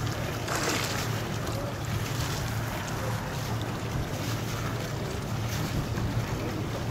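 Steady wind buffeting the microphone over the rush of water, with a constant low rumble and a louder gust about half a second in.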